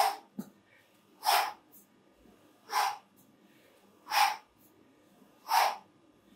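A person breathing out hard in short, sharp hisses, evenly about every second and a half, five in all: forced exhalations timed to each repetition of a cardio exercise.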